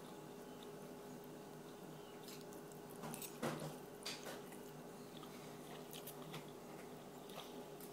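Faint wet mouth smacks and chewing from a toddler eating a peanut butter and jelly sandwich and sucking on her fingers, a handful of short smacks between about two and seven and a half seconds in, over a steady low hum.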